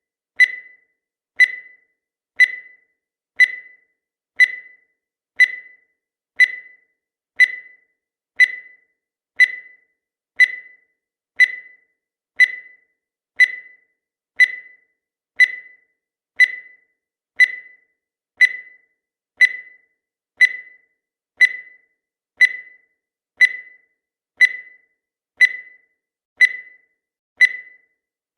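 Countdown timer sound effect: a short, high beep once a second, each one fading away quickly, repeating evenly through the count.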